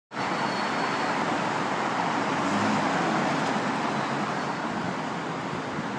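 Steady noise of busy city street traffic, cars and buses driving past.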